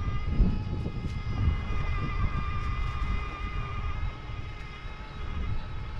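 Bafang Ultra M620 mid-drive e-bike motor whining steadily at a high pitch under pedal assist, easing a little near the end, over a low, uneven rumble with a few light knocks from the bike on the rough dirt trail.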